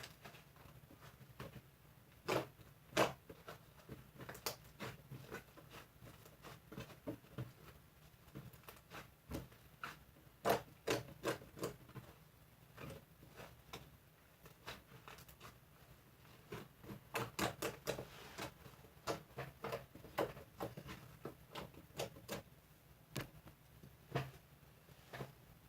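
Irregular light clicks and taps of kitchen utensils against a bowl or pan while baking, some in quick runs of several, over a faint steady low hum.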